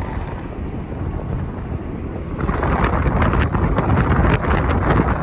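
Low road rumble inside a moving car. About two and a half seconds in it turns into a louder rush of wind and road noise, with wind buffeting the microphone.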